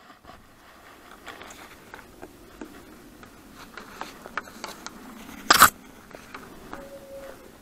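Handling noise from a hand-pump garden pressure sprayer being picked up: gloved hands rubbing and clicking on its plastic handle, wand and strap, with one loud knock a little over halfway through.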